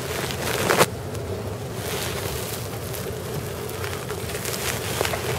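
Room tone: a steady low hum and hiss, with a couple of brief faint rustles in the first second.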